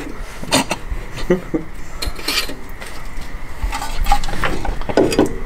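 Scattered light metallic clinks and taps at irregular intervals, from hands working a coilover and brake rotor in an open wheel well.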